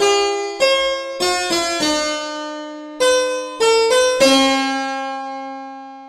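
Two-voice counterpoint played on a keyboard instrument with a harpsichord-like tone: two melodic lines move note against note. It closes on a held two-note sonority that slowly fades. This is an example of invertible counterpoint in strict style, with Melody 1 as the upper voice.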